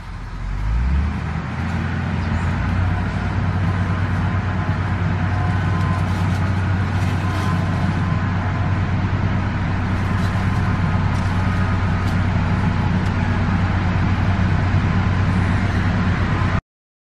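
An engine running steadily with a low hum, growing louder over the first second, holding steady, then cutting off suddenly near the end.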